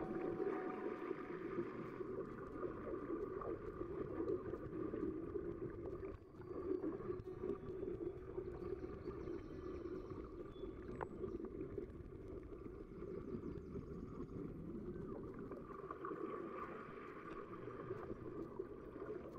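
Steady, muffled underwater wash picked up by a camera held below the surface, with a faint constant hum running through it and a brief drop in level about six seconds in.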